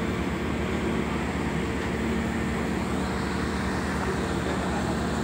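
A ro-ro ferry's onboard machinery running steadily: an even drone with a low, constant hum.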